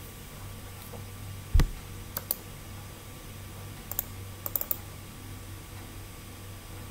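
Computer mouse clicking while files are selected and opened: a louder knock about a second and a half in, a pair of clicks just after, and a quick run of clicks around four and a half seconds in, over a low steady hum.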